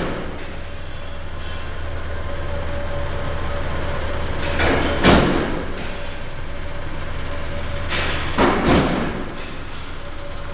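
Hair sorting machine running: a steady motor hum with a low drone, broken by louder strokes of its mechanism, one about halfway through and a quick double one near the end.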